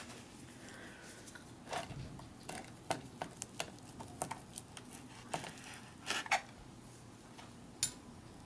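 Small folding knife slicing a sausage on a plastic tray: scattered soft clicks and taps as the blade cuts through the casing and meets the tray.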